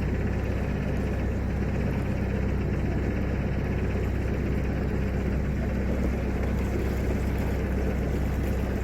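A narrowboat's engine running steadily underway, a low, even hum.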